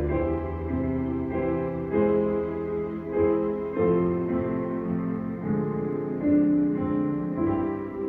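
Slow piano music, sustained chords changing about once a second.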